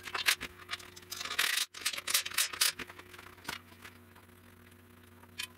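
Hands working a winch and its power cable against the mount: rubbing, scraping and light clicks and knocks, busy for the first three seconds or so, then quieter with one click near the end. A faint steady hum lies underneath.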